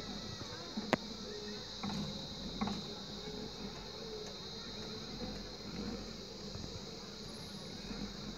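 Insects buzzing in a steady high drone, with one sharp click about a second in.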